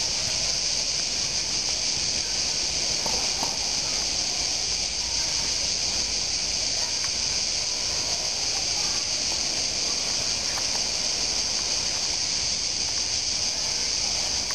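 A dense chorus of crickets shrilling steadily in one continuous high-pitched band, with no pauses between chirps.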